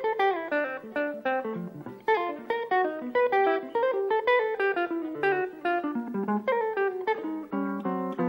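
Solo jazz guitar: an archtop hollow-body electric guitar through an amplifier, playing fast bebop single-note runs, many of them falling, with chords near the end.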